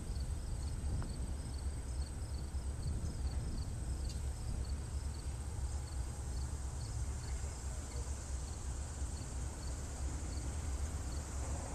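Insects chirping in an even rhythm, about three chirps a second, with a steady high drone above them and a low steady rumble beneath.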